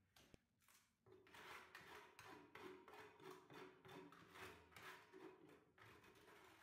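Faint scraping of a trowel working wet mortar into a chased groove in a masonry wall, in quick repeated strokes about three a second, starting about a second in after a single knock.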